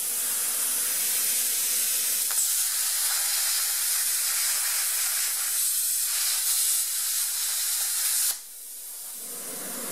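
Eastwood Versa Cut 60 plasma cutter cutting through steel plate: a steady, loud hiss of the arc and air jet. About eight seconds in the arc cuts off abruptly, leaving a softer hiss.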